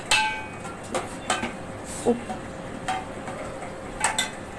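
Steel spoon clinking and scraping against a steel cooking pot while chicken pieces are stirred: a string of irregular metallic clinks, the first ringing briefly just after the start.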